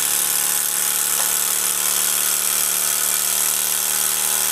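Gas-fired Mamod SP6 single-cylinder model steam engine running flat out: a fast, steady whirr with a constant hiss.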